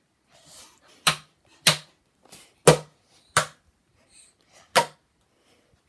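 Five sharp smacks at irregular intervals of roughly a second, like objects or hands striking in a game of blocking.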